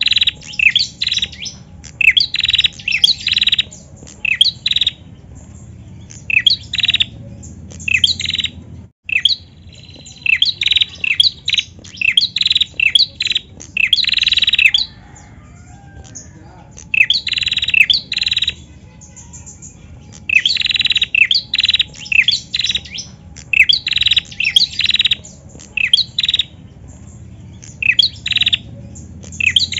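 Female prenjak calling persistently in runs of sharp, high chirps, several a second, broken by short pauses.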